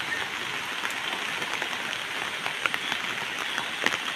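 Steady hissing rush of rain and floodwater, with a few short splashes as people wade through it, the sharpest near the end.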